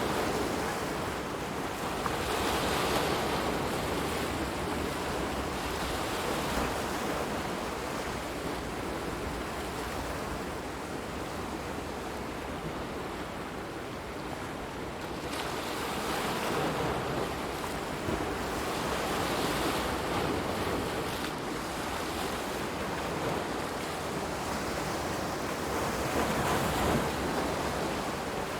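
Waves washing in, a continuous rush of water that swells and eases every few seconds.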